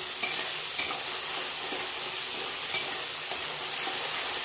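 Ground mustard paste sizzling in hot oil in an aluminium kadhai while a steel spatula stirs it, with a few light ticks.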